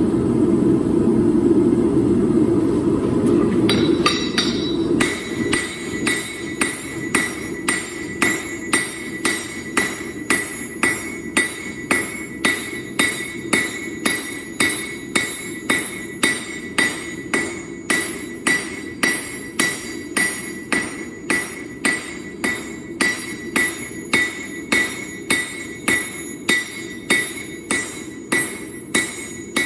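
Hammer blows on a Damascus steel billet at the anvil, a steady run of about one and a half strikes a second, each with a ringing metallic tone. A steady low roar of the forge is loud for the first four seconds and goes on more quietly beneath the hammering.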